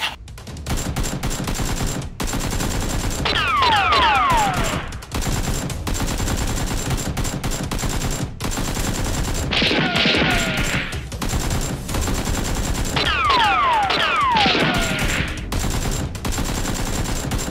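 Sustained rapid automatic gunfire, a firearm sound effect dubbed over a Nerf blaster fight. Falling whistling tones come through twice, a few seconds in and again about two-thirds of the way through.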